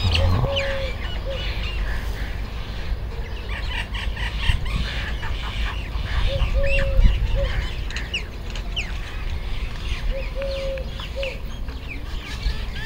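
Small birds chirping throughout, and three times a short honking call, one longer note followed by a short one. A steady low rumble runs underneath.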